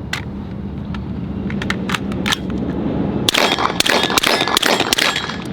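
Clicks and metallic rattles of a rifle being reloaded by hand: a few separate clicks at first, then a quick cluster of clicking and rattling in the last two seconds.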